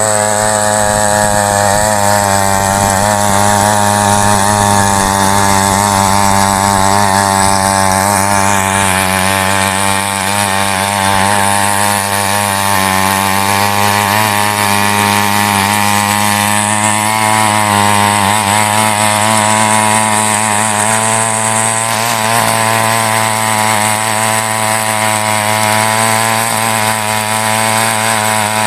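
Small petrol engine of a mini weeder (rotary tiller) running steadily at high speed as its tines churn through dry soil. The engine pitch wavers slightly under the changing load.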